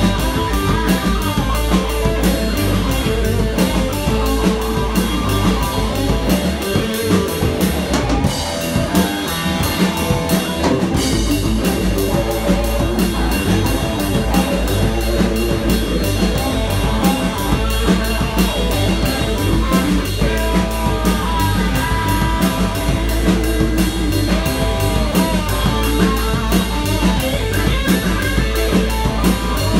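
Live blues band playing an instrumental passage: electric guitars, bass, keyboard and drum kit, with a lead guitar line that bends its notes. For a few seconds, about seven seconds in, the bass end thins out before the full band comes back in.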